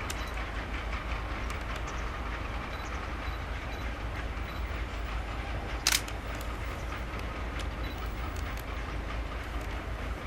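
E351 series electric train running on the rails with a steady low rumble, and one sharp clank about six seconds in.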